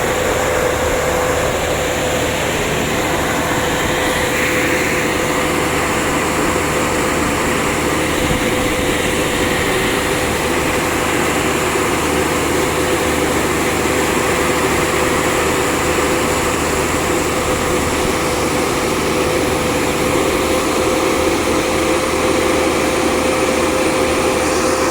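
Small electric-hydraulic well-drilling rig running steadily: an unbroken machine drone with a steady whine throughout.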